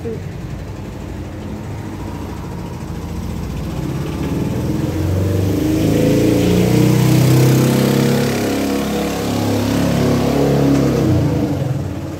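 Small flatbed pickup truck's engine coming closer and passing by, loudest about seven or eight seconds in, then fading as it drives off up the street.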